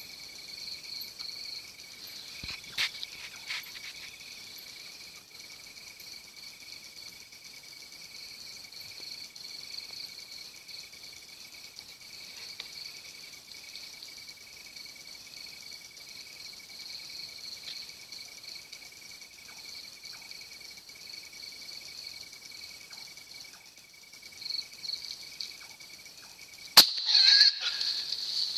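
Steady shrill trilling of night insects in two high pitches. Near the end a single sharp gunshot from the hunter's rifle cracks out, the loudest sound, followed by a second or so of scuffling noise.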